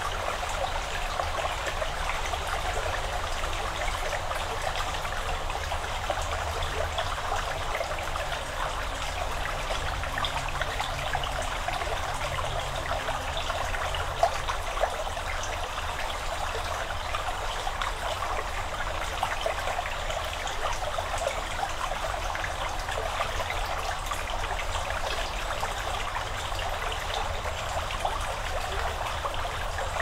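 Chalk stream flowing and trickling, a steady rush of water with fine splashing detail over a low steady rumble.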